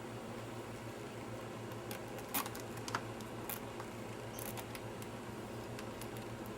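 A few short clicks and taps of small parts being handled, the loudest two about two and a half and three seconds in, over a steady low hum.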